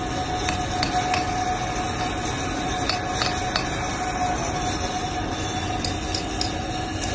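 Steady machinery noise with a constant high whine, with a few light taps and knocks scattered through it.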